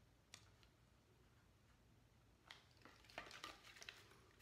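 Near silence: room tone with a few faint clicks and rustles of items being handled, most of them in the second half.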